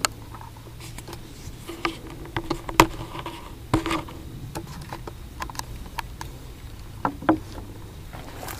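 Small metal clicks and taps from a .22 LR pen gun's parts being handled as its barrel is unscrewed for loading, the sharpest about three seconds in and a pair near seven seconds, over a faint steady low hum.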